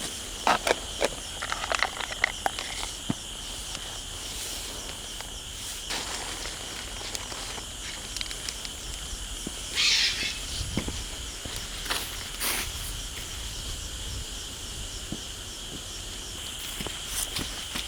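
Outdoor ambience with a steady high-pitched drone like insects, a cluster of sharp clicks in the first couple of seconds, and a short hiss about ten seconds in.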